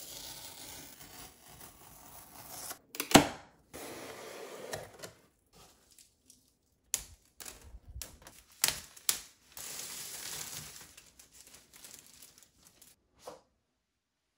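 Unboxing handling sounds: tape peeled from a cardboard shipping box and the plastic film on the iPad box crinkled and torn, broken by a few sharp knocks and clicks. The loudest knock comes about three seconds in.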